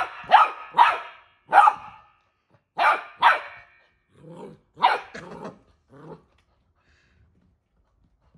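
Golden retriever puppy barking at a lemon wedge: a string of about seven short, high-pitched yaps in the first five seconds, mixed with a few lower growls up to about six seconds in.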